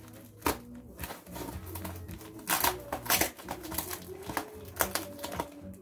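Plastic film and foam packing wrap rustling and crinkling as hands pull it open around a loudspeaker, in irregular bursts of sharp crackles.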